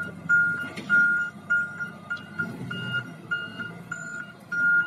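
Wheel loader's reversing alarm beeping, one high tone repeated about every 0.6 s, over the low running of its engine.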